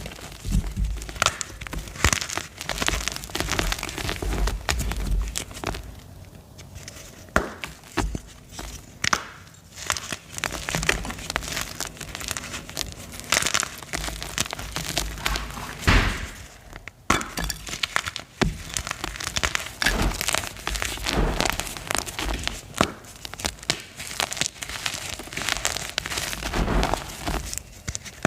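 Gym chalk blocks being crushed and crumbled, a run of irregular sharp cracks and crunches with gritty crumbling between them; one of the loudest cracks comes about two-thirds of the way through.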